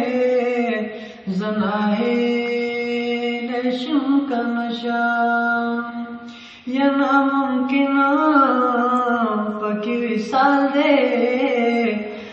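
Chant-like singing without instrumental accompaniment: long held notes that waver in pitch, in phrases of a few seconds with short breaks about a second in and again past the middle.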